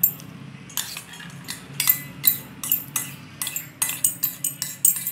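A metal spoon scraping and knocking against stainless steel bowls as chopped onion and tomato are scraped from one bowl into another: a quick, irregular run of metallic clinks and scrapes, some ringing briefly.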